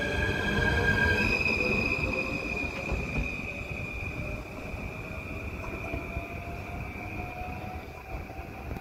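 Arriva Stadler FLIRT³ electric multiple unit pulling away and accelerating. Its electric drive gives a whine that rises steadily in pitch, over the rumble of the passing carriages. The sound fades as the train moves off into the distance.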